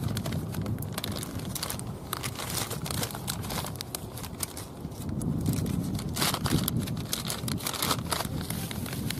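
Plastic and foil groundbait packets crinkling and crackling as they are handled and tipped out over a bowl of dry bait, in irregular bursts. A steady low rumble runs underneath.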